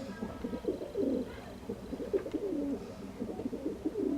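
Several pigeons cooing, one call overlapping the next, low and repeated.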